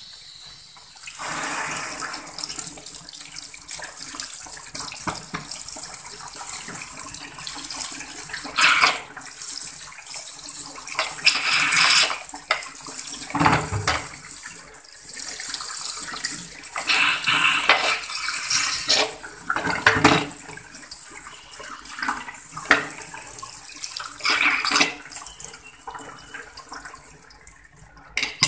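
Tap water pouring onto the lid of a metal pressure cooker in a steel sink, starting about a second in, with several sharp clunks as the cooker is turned under the stream. The cooker is being cooled down after cooking.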